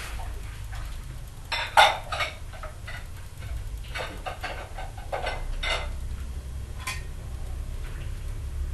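A few short, sharp clatters of hard objects, the loudest just under two seconds in, with more scattered through the middle, over a steady low hum.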